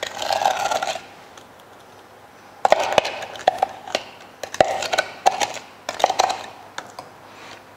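A metal mixing bowl and a utensil being handled on a stone countertop: a brief scrape at the start, then several clusters of short clinks and knocks from about two and a half seconds in.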